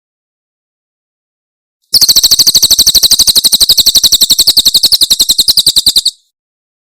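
A cililin songbird giving its rapid 'tembakan' call: after a short silence, a fast, even trill of high-pitched notes, about a dozen a second, lasting about four seconds and stopping suddenly.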